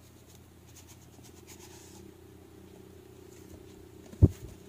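Faint steady low hum, with one short, loud, dull thump about four seconds in.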